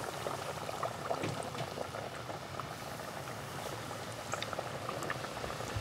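Battered fish fillets deep-frying in hot oil in a cast-iron pot: a steady sizzle with a dense patter of small crackles from the bubbling grease.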